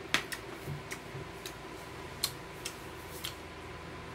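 Metal chopsticks clicking and tapping against bowls and side-dish plates: about seven light, irregular clicks, the loudest just after the start.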